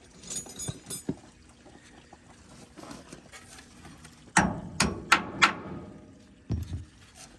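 Hammer striking a stuck bolt to drive it out of the steering shaft joint: four quick, sharp metal strikes with a short ring, then a duller knock about a second later.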